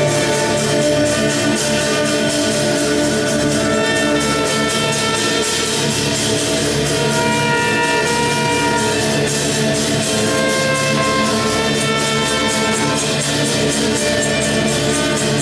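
A live chamber orchestra playing, with a trumpet and violins sounding together in held notes that change every second or so, over a quick, steady rhythmic pulse.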